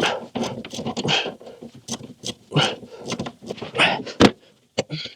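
Irregular clicks, clinks and scrapes of hand tools working on metal fittings, with one sharp knock about four seconds in.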